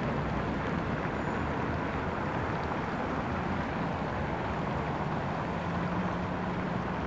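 Steady outdoor city traffic noise, an even rumble and hiss with a faint low hum that grows a little stronger in the second half.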